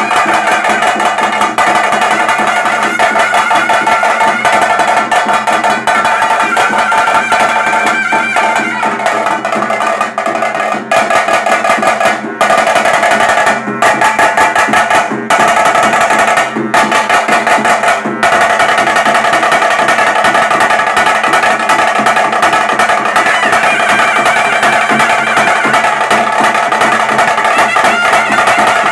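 Traditional kola vadya band playing: drums beaten in a fast, dense rhythm under a brass wind instrument holding a loud, sustained melody. The playing has a few brief breaks near the middle.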